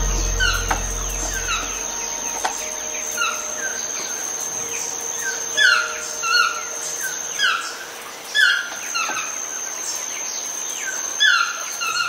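Yellow-throated toucan calling: a series of yelping calls that each slide down in pitch, coming about once a second and loudest in the second half, over a steady high whine. Soft background music fades out in the first two seconds.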